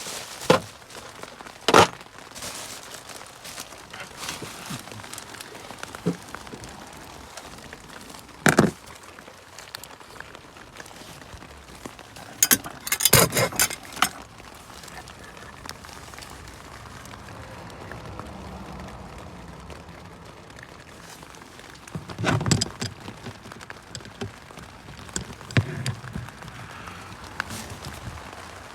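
Scattered metallic clinks and knocks of hand tools on the engine, with a quick run of clicks about thirteen seconds in and another cluster a few seconds after twenty.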